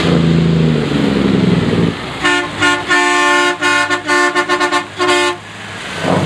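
A large motorhome's engine running and rising in pitch as it approaches, then its horn sounding a rapid string of about ten short and longer honks before the engine is heard again near the end.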